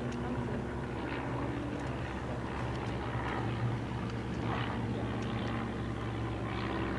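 Steam locomotive working in the distance as it approaches, its exhaust chuffing slowly, roughly once a second, over a steady low rumble.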